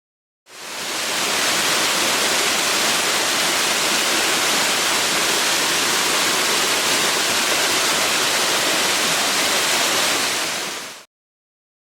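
Waterfall rushing: a steady, even hiss of falling water that fades in about half a second in and cuts off abruptly near the end.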